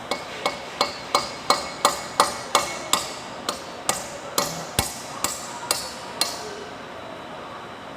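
Hammer tapping on metal with about sixteen sharp, ringing blows, roughly three a second, stopping about six seconds in. This is the work of fitting new turbine blades to a turbocharger rotor shaft.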